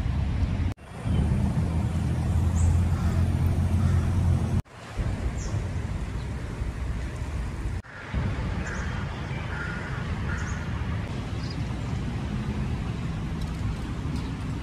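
Steady low rumble of distant road traffic heard in an outdoor park, with a few faint, short high chirps over it. The sound drops out briefly three times, at edit cuts.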